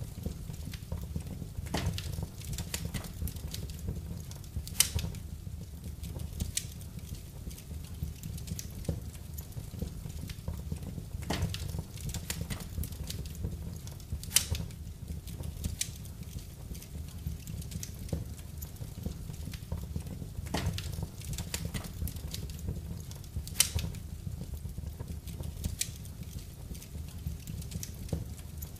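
Wood fire crackling in a fireplace: irregular sharp pops and snaps over a steady low rumble of the flames, with a few louder pops spaced several seconds apart.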